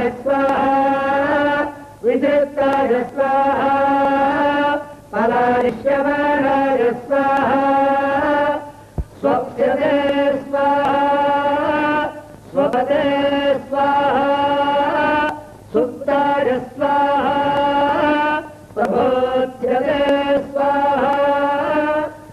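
Vedic mantras chanted on a near-monotone during a homa fire ritual, sung in held phrases one to three seconds long with short pauses between them.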